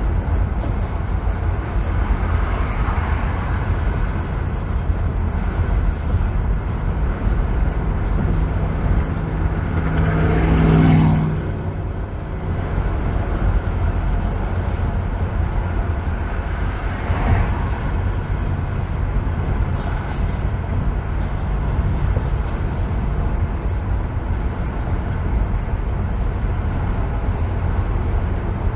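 Steady road and engine rumble of a car driving on a freeway. A louder swell with a low engine tone builds and falls away about ten to eleven seconds in, and a smaller one comes near seventeen seconds.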